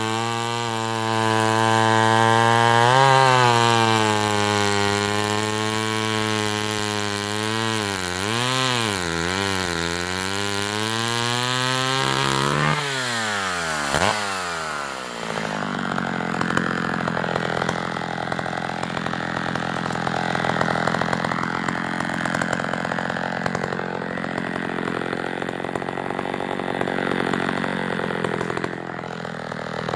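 Vintage Sears D-44 70 cc direct-drive two-stroke chainsaw running at high revs, its pitch dipping and recovering as it is loaded in a cut through maple. About twelve seconds in the engine speed falls away; it then runs slower and rougher until it revs up sharply again at the very end.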